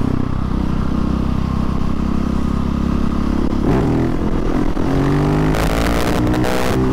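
Husqvarna 701 Supermoto's single-cylinder engine running steadily at road speed, then revving up with a rising pitch about halfway through as the throttle is opened hard for a wheelie.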